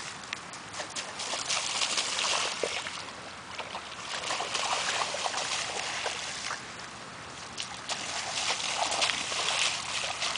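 Bare feet running and splashing through a shallow rain puddle, in three bursts of splashing a few seconds long as the runner makes passes through the water.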